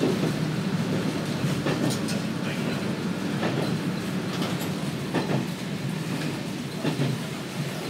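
Cabin noise of a KiHa 200 diesel railcar under way: a steady low drone of engine and running gear, with irregular sharp clicks, some in quick pairs, as the wheels pass over rail joints.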